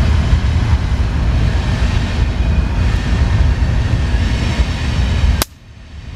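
Oxy-acetylene welding torch with a neutral flame burning steadily on thin mild steel, a loud, even, low rushing noise. About five and a half seconds in it stops suddenly with a click, and a quieter rush builds back up.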